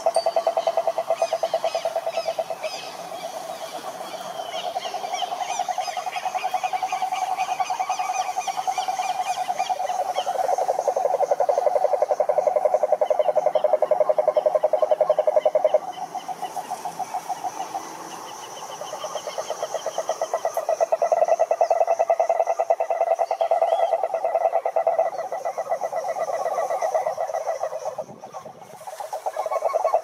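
Cane toads calling: long, steady trills of rapid pulses, low and purring, running almost without a break, with a short gap near the end. A fainter, higher trill sounds above them at times.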